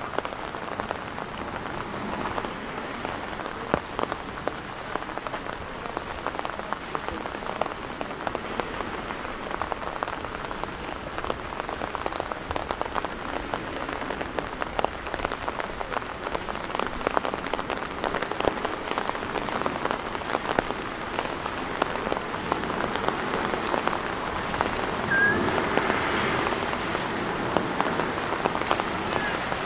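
Steady rain falling, dense with small sharp drop hits close by, growing a little louder near the end.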